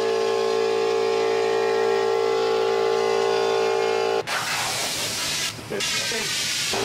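A steady held chord of background music, which cuts off about four seconds in. It gives way to a loud, even hiss of compressed air from an air nozzle at the valve of an inflatable ball, with a brief dip partway through.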